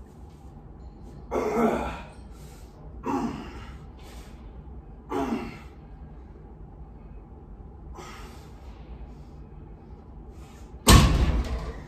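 Four short, sharp breaths from a lifter holding a loaded barbell at deadlift lockout. About eleven seconds in, the 295 lb loaded barbell is dropped onto a foam gym mat with a loud thud that dies away over about a second.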